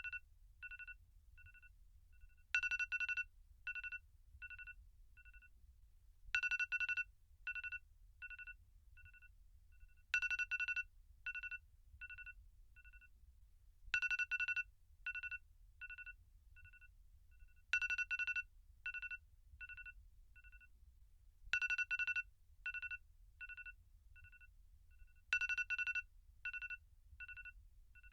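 iPhone alarm tone beeping in a repeating pattern. About every four seconds a loud, rapid cluster of beeps is followed by a run of softer single beeps that fade away.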